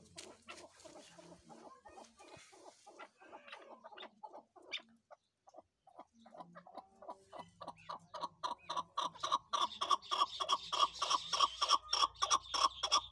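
Chukar partridges calling: softer scattered clucks, a brief pause about halfway in, then a fast, even series of 'chuck' notes, about four a second, that builds steadily louder to the end.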